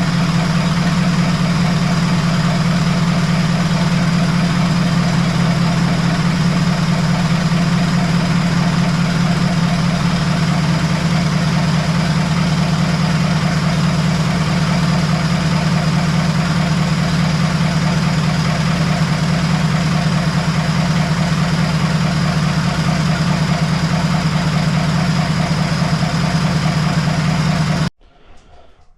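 Cummins diesel engine in a skid steer idling steadily. It stops abruptly near the end.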